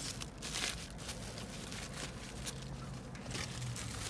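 Paper food wrapper rustling and crinkling as a burger is unwrapped by hand, over a low steady hum.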